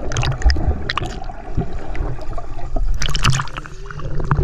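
Swimming-pool water sloshing and gurgling around a camera held under and at the surface, with scattered sharp clicks and a burst of splashing about three seconds in.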